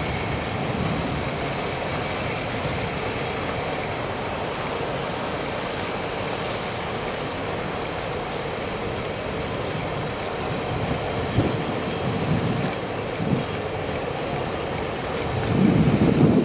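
Mk2 passenger coaches rolling past on the track: a steady rush and rumble of wheels on rails, with a few sharp clacks in the second half. A louder low rumble swells near the end.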